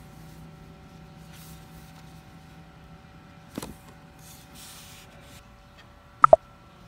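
Soft rustling of notebook paper being handled, then near the end two sharp metallic clicks in quick succession as metal binder clips are picked up from a wooden desk.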